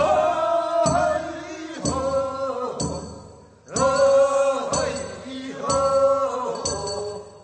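Korean funeral bier-bearers' song (sangyeo-sori) from Gyeongsang province: voices singing a chant in short held phrases of about a second each, with a brief pause about three and a half seconds in.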